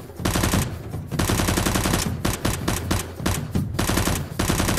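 Rapid bursts of machine-gun fire, dense overlapping shots with short breaks about half a second and two seconds in.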